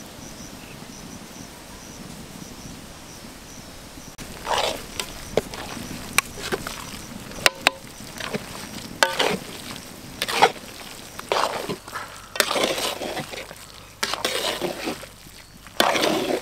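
A metal utensil scrapes and clinks against a cooking pan in irregular strokes, with a few sharp knocks, starting about four seconds in. Faint cricket chirping and a steady hiss lie underneath.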